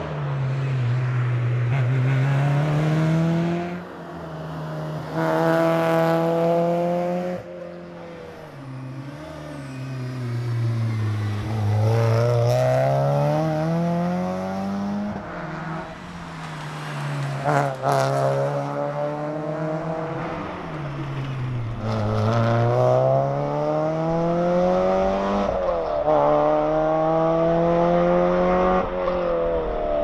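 Porsche 968 CS's 3.0-litre four-cylinder engine being driven hard: revs climb, drop suddenly at each gear change, then fall away as it lifts off, again and again. A sharp crack comes a little past halfway.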